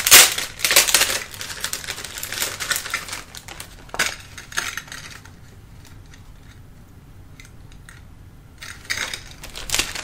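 Hands handling small merchandise and its plastic wrapping: a quick run of crackles and small hard clicks for about five seconds, loudest at the very start. After a pause, crinkling plastic wrap starts again near the end as a cellophane-wrapped package is picked up.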